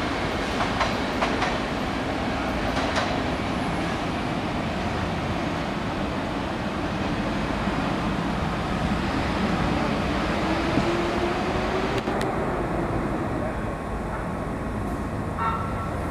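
R68 subway train leaving the station and running away down the track: a steady rail rumble, with wheels clacking over rail joints in the first few seconds. A rising whine comes in about ten seconds in as it gathers speed.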